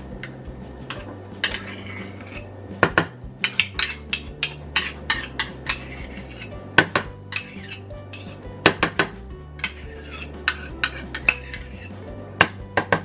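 Kitchen clatter: a spoon, bottles and containers clinking and knocking in quick, irregular taps as ingredients go into a blender jar.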